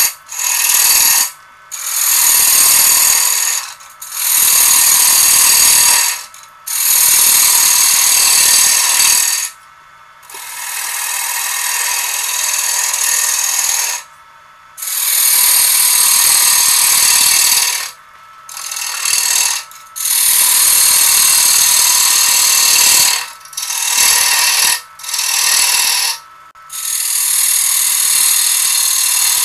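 Bowl gouge cutting a large red oak bowl blank spinning on a wood lathe: a series of loud hissing cuts, each one to four seconds long, broken by short pauses where only the lathe's hum is left.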